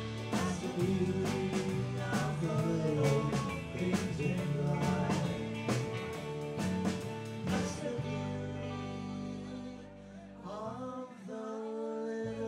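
Live rock band playing: singing over guitar and a steady drum beat. About eight seconds in the drums stop, leaving held chords and a short sung line.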